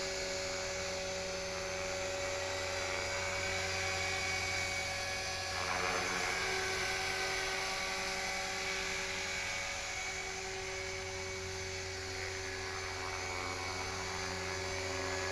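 HK-450GT electric RC helicopter hovering, its motor and rotor giving a steady whine.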